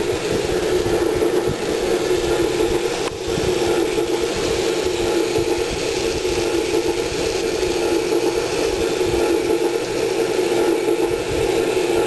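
N-scale Santa Fe passenger train running along its track, its small locomotive motor and wheels on the rails making a steady running rumble. There is one brief dip about three seconds in.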